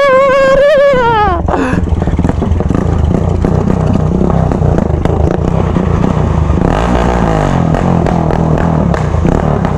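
Loud straight-piped motorcycle engines while riding. A high rev holds for about a second at the start and then drops off, steady running follows, and a falling note comes about seven seconds in as the throttle is rolled off.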